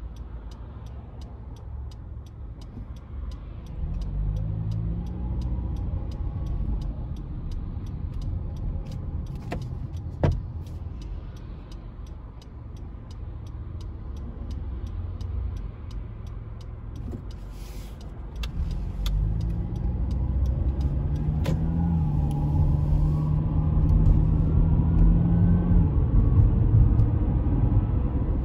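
Honda CR-V being driven, heard from inside the cabin: a low road and engine rumble, with the engine note rising as the car accelerates about four seconds in and again around nineteen seconds, then holding steady and louder. A single thump comes about ten seconds in, and a faint even ticking runs through the first half.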